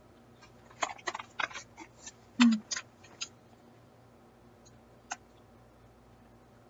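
Crunching of cheese pizza waffle-round snacks being bitten and chewed: a quick run of sharp crunches in the first half, the loudest about two and a half seconds in, then one more short crack about five seconds in.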